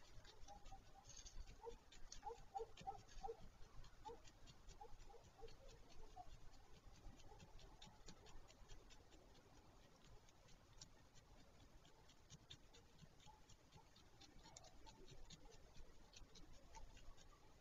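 Faint, rapid scratching and ticking with a scatter of short, squeaky notes, mostly in the first few seconds and again near the end: the unexplained weird sounds from under a black stork nest.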